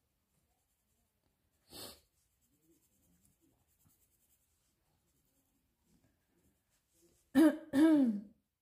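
A woman coughs twice in quick succession near the end, a hoarse sound from a sore throat. Before that there are only faint scratches of a coloured pencil on paper and a short hiss about two seconds in.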